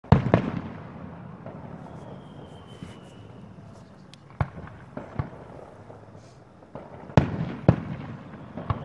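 Fireworks exploding: a quick cluster of bangs at the start, single bangs about four and five seconds in, and louder bangs around seven seconds and near the end, each trailing off in a rumble.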